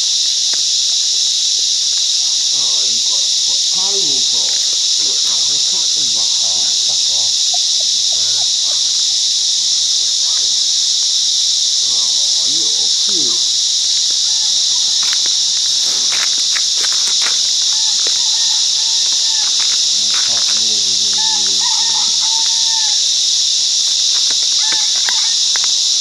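Cicada chorus: a deafening, steady, high-pitched drone that never lets up.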